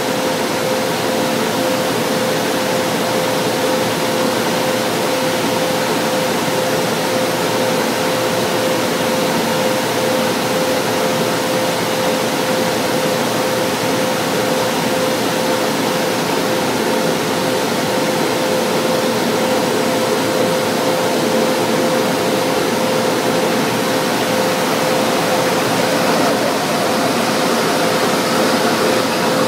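A standing train's on-board ventilation and electrical equipment running: a steady rushing hum with a constant mid-pitched whine.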